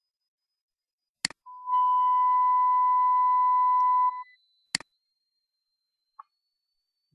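A steady 1000 Hz sine-wave censor beep plays for about two and a half seconds, then stops. A sharp click comes just before it starts and another shortly after it ends.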